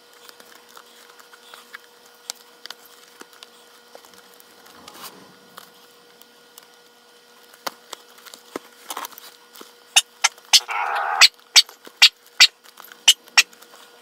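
Leather lace being worked through a Wilson A2K baseball glove: faint handling taps, then from about ten seconds in a quick run of sharp snaps with a short rasp as the lace is drawn through the lace holes and tugged tight.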